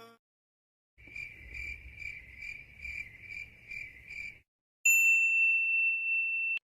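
Cricket chirping sound effect, a high chirp repeating about two and a half times a second for a few seconds. Then a loud, steady high-pitched beep for under two seconds that cuts off suddenly.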